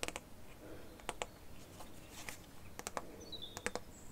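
A scattering of light, sharp taps and clicks from handling Pokémon trading cards, about eight in all, irregularly spaced. A bird gives one short, falling chirp about three seconds in.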